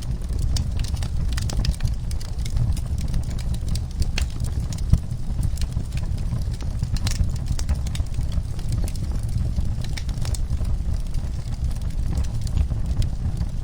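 Fireplace wood fire crackling: irregular sharp pops and snaps over a steady low rumble of the burning fire.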